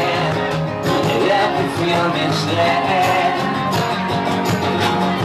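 Live acoustic band playing: strummed acoustic guitars under a man's singing voice, with hand percussion on a box drum keeping the beat.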